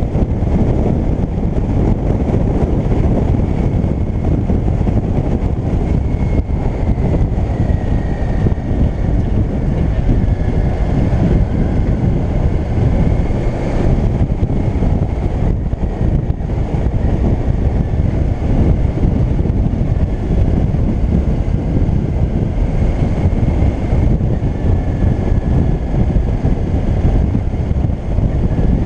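Motorcycle riding at a steady cruise: heavy wind rush on the microphone over the running of a Yamaha DragStar Classic's V-twin engine.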